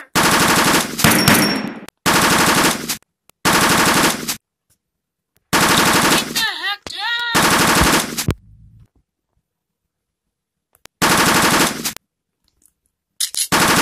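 Automatic gunfire sound effects in several bursts of about a second each, separated by short silences, with a longer pause about two thirds of the way through.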